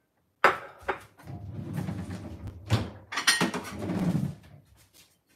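A kitchen drawer sliding open and shut, with sharp knocks and a clink of crockery as a plate is taken out.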